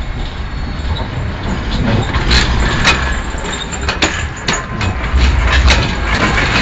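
Sheffield Supertram tram passing at close range: a steady low rumble, with a run of sharp clicks and brief high squeaks from its wheels on the rails in the middle of the passage.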